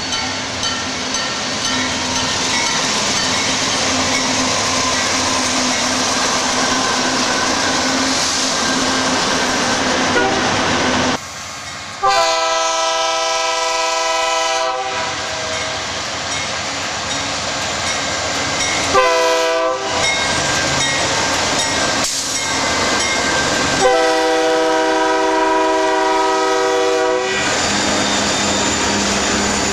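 A train rolling past with steady rumble and wheel clatter, then a Nathan Airchime K3-series three-chime locomotive air horn blowing over the moving train: a long blast of about three seconds, a brief blast, and another long blast of about three seconds.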